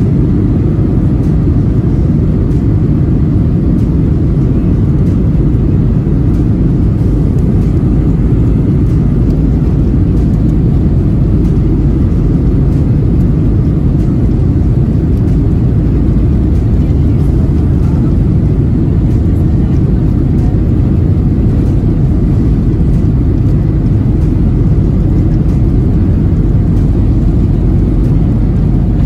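Boeing 737-900's CFM56 jet engines and rolling noise heard from inside the cabin as a steady, loud, low rumble while the jet moves along the ground.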